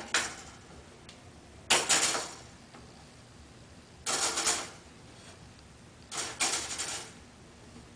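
Pleat spacers being tugged off a furnace air cleaner's filter and set aside: three short bursts of clattering and scraping, about two seconds apart.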